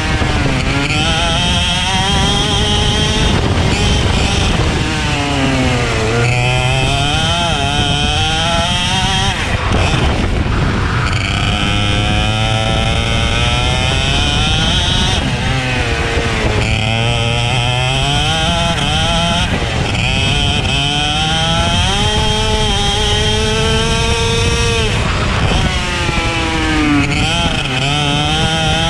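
Racing kart engine running hard, its pitch climbing steadily and then dropping sharply, over and over, as the kart accelerates and slows around the lap.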